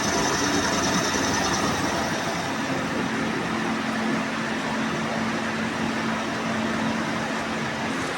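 CNC vertical milling machine running as it mills a workpiece, a steady machining noise. A high whine fades out in the first two seconds, and a steady low hum comes in about two and a half seconds in.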